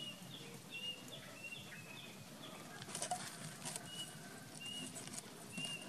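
Short high chirps repeating roughly twice a second, over faint rustling and snapping of dry stems as a baby macaque grips and chews them.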